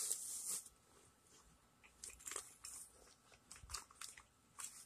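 Faint scattered clicks and rustles, with a short hissy rustle dying away in the first half-second.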